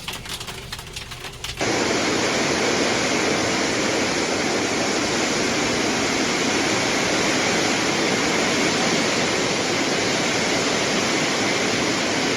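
Hailstorm: a loud, dense, steady roar of hail pounding down, which cuts in abruptly about a second and a half in, after a quieter stretch of scattered ticks.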